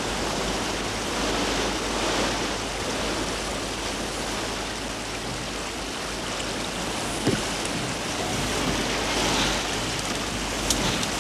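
Water rushing and splashing along the hull of a sailing barge under way, with wind, a steady noise. A brief knock about seven seconds in.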